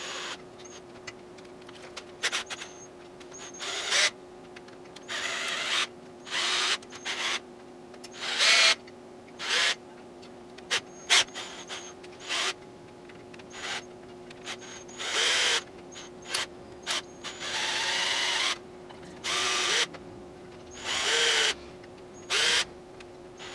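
Bosch cordless drill with a nipple-driver bit, run in over a dozen short bursts of half a second to a second and a half with short pauses between, spinning spoke nipples onto the spokes of a wheel being laced. A faint steady hum runs underneath.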